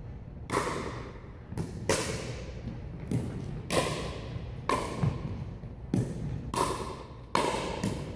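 Pickleball rally: paddles striking a plastic pickleball and the ball bouncing on a wooden gym floor, about ten sharp pocks at an uneven pace, each echoing in the large hall.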